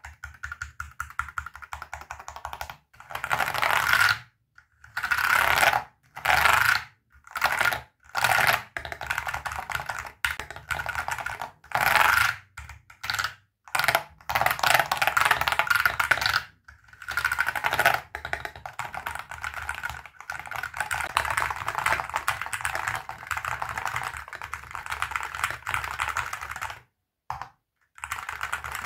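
Typing on an ATK RS6 Ultra keyboard, a 65% aluminium-case board with magnetic Hall-effect switches: fast runs of keystrokes in bursts, broken by short pauses.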